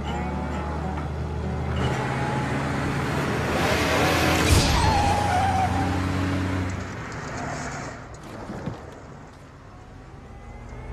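Cartoon car sound effects: old cars' engines running with a low steady drone, and a rushing tyre skid that swells to a peak about four seconds in with a falling squeal. The sound dies down after about seven seconds.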